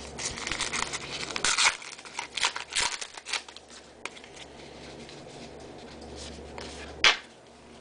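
Trading cards being handled and flipped through: quick soft clicks and rustles of card stock, busiest in the first three seconds, then quieter, with one sharper click near the end.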